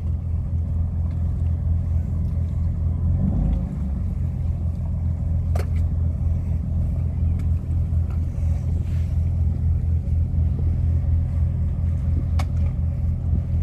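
Fire rescue boat's engines running steadily while holding the boat against the pier, a low, even drone, with a couple of faint clicks.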